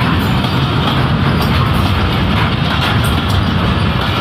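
Passenger coaches of a diesel-hauled express train rolling past close by: a steady, loud rumble of wheels on track with occasional faint clicks.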